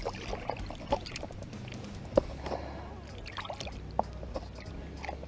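Water trickling and dripping around a kayak, with a few light knocks against the hull.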